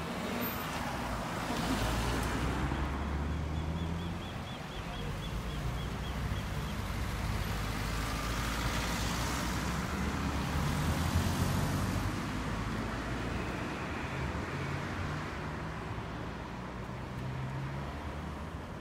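Cars driving past through a road intersection, engine hum and tyre noise swelling as each car passes close, about two seconds in and again around nine to eleven seconds in, then easing off. A faint rapid ticking runs for a few seconds early on.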